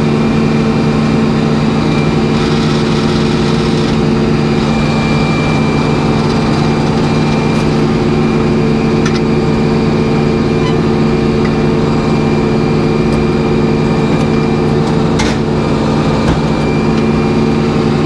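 Sawmill's engine running at a steady speed with an even drone. Two faint clicks come through about halfway and near the end.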